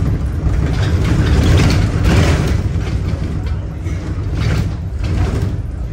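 Interior noise of a moving bus: a steady low engine and road rumble with irregular knocks from the bodywork and fittings.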